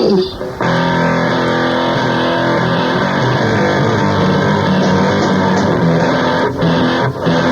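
Loud rock music with guitar, starting up again after a brief break about half a second in.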